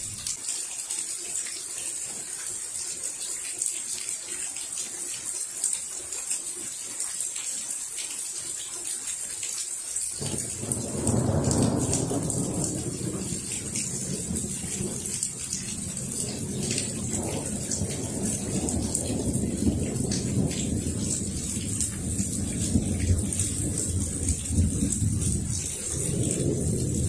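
Steady rain hissing and pattering, then about ten seconds in a peal of thunder starts: a low rolling rumble that swells, rumbles on and swells again near the end.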